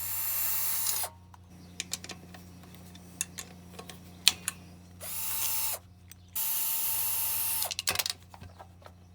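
Power drill with a 10 mm socket spinning out bolts, running in three short bursts, the longest near the end, with sharp metal clicks and clinks between the bursts.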